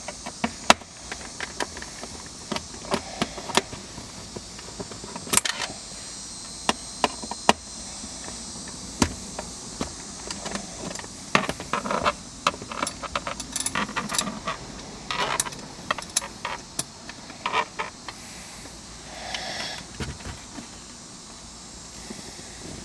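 Scattered sharp clicks, small metallic clinks and rattles of a T15 Torx driver and its small screws being worked on a car's plastic centre console lid, with a short soft rubbing swell near the end.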